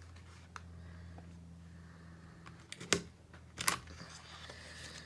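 Crop-A-Dile hand hole punch punching through a paper page: two sharp clunks a little under a second apart, with a fainter click just before.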